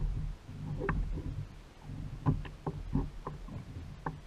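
Water knocking and lapping against the plastic hull of a sit-on-top fishing kayak: about half a dozen light knocks over a low steady rumble.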